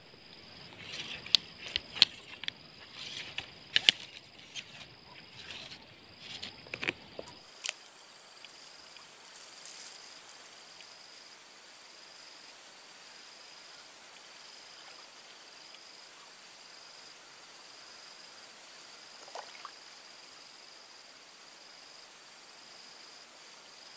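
Insects chirring steadily at a high pitch, with a lower, pulsing chirr beneath it. Over the first seven seconds or so a string of sharp clicks and knocks from handling stands out above them.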